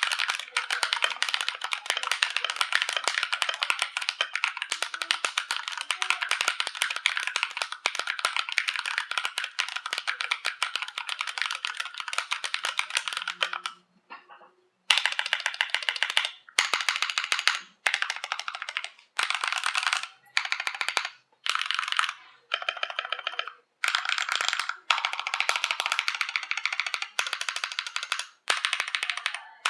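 Fast typing on a GMMK Pro mechanical keyboard with lubed AKKO CS Rose linear switches in an aluminium plate, under doubleshot PBT OEM-profile keycaps, sounding clacky through a phone microphone. Steady rapid keystrokes for about the first half, then a pause of about a second, then bursts of typing lasting a second or two with short breaks between them.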